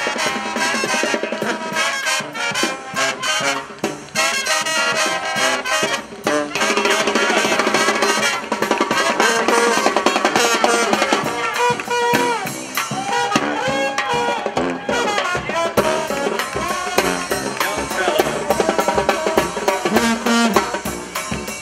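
New Orleans brass band playing a tune, with trumpets and trombones over a marching drum beat.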